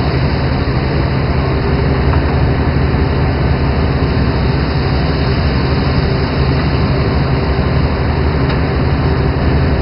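A fishing boat's engine running steadily, a constant low drone with no change in speed.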